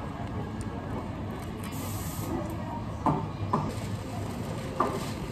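Café background noise: a steady low hum, a brief hiss about two seconds in, then three short sharp clatters.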